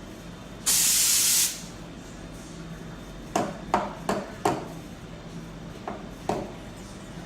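A short blast of hissing steam from the Royal Synchro T2 espresso machine's steam wand, starting and stopping abruptly and lasting under a second. A few seconds later come about six short knocks and clinks of cups or utensils.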